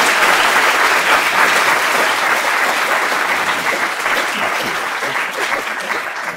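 Audience applauding steadily, the clapping thinning a little toward the end.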